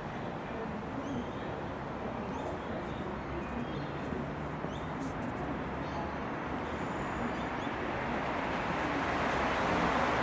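Rumble of an approaching rail or road vehicle, growing steadily louder toward the end.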